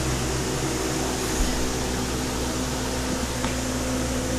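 Steady mechanical hum with an even hiss over it, and one low bump about a second and a half in.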